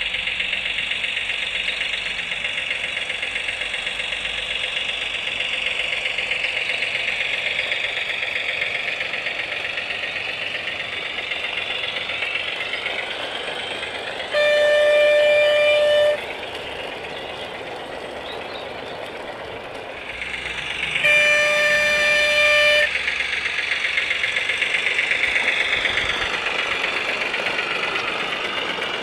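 Sound unit in a Gauge 1 model Class 03 diesel shunter playing its diesel engine sound through a small speaker as the locomotive runs. It gives two horn blasts of under two seconds each, one about halfway through and another some seven seconds later.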